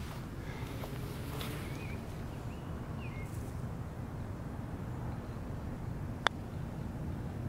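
Steady low outdoor background noise with a few short bird chirps, then a single sharp click about six seconds in: a golf club striking the ball.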